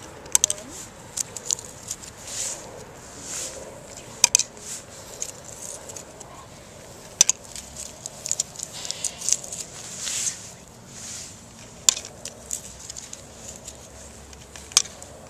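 Scattered sharp clicks and crinkly rustling from hands unwrapping a roll of Mentos and loading the candies into a clear plastic geyser tube on a soda bottle.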